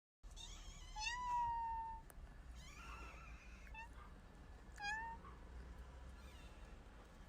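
Stray cat meowing: one long, loud meow about a second in, then several shorter, fainter meows.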